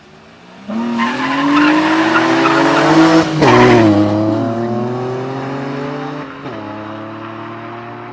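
Two Opel Calibra V6 cars launching at full throttle from a standing start: the engines rev up hard with tyre squeal at the launch, then pull away through the gears, the pitch rising and dropping at a gear change about three seconds in and again about six seconds in, fading as the cars draw away.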